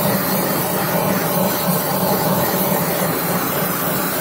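Gas torch flame hissing steadily as it post-heats a freshly welded cast iron hydraulic reservoir, to relieve the stress left by the welding.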